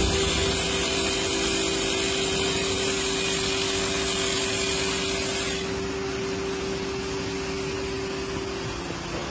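Handheld electric clippers running with a steady buzz while being worked over a cow's tail.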